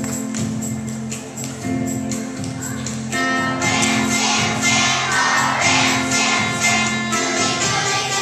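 Children's choir singing to an instrumental accompaniment, growing fuller and louder about three seconds in.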